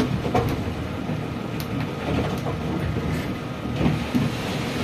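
Steady mechanical rumble of a running concrete batching plant, with a few light clicks scattered through it.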